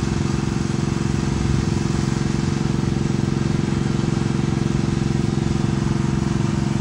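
A motor running steadily, a low hum with a fast, even flutter.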